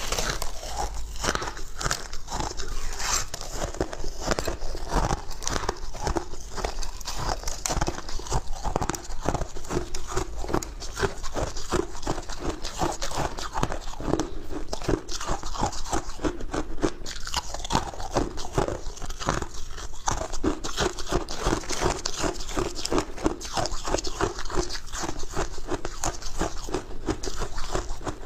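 A person biting and chewing crushed ice, a rapid, continuous run of crisp crunches close to a clip-on microphone.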